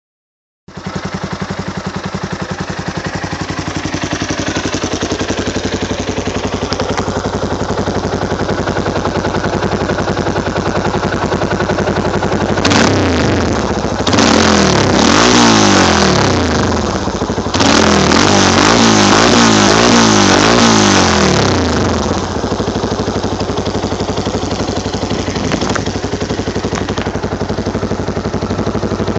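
Yamaha Raptor 350 quad's single-cylinder four-stroke engine breathing through a Scorpion aftermarket exhaust with its restrictor removed. It idles, is revved in a run of quick throttle blips for about ten seconds past the middle, then settles back to idle.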